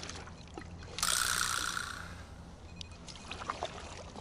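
Water splashing and lapping against a kayak on choppy sea, with one sudden splash about a second in that hisses and fades over about a second.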